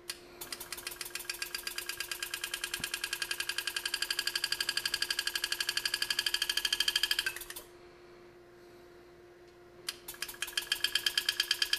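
Enset pneumatic engraving handpiece hammering a graver through metal as it cuts a flare cut. Rapid even ticking, about ten strokes a second, grows louder for several seconds and stops about 7.5 s in. It starts again about 10 s in for the next stroke of the cut.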